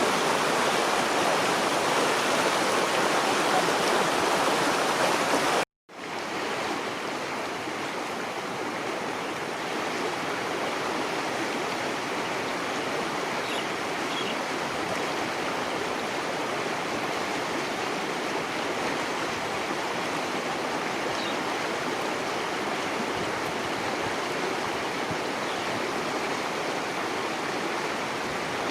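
Steady rush of flowing floodwater. It cuts out completely for a moment about six seconds in, then carries on slightly quieter.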